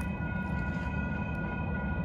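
Railroad grade-crossing warning bell ringing steadily as a set of high tones, over the low, steady rumble of a BNSF manifest freight train.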